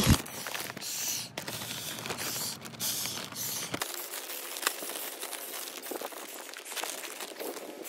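A thin plastic bag crinkling and rustling as a man breathes in and out of it through its valve, with scattered small clicks of the plastic.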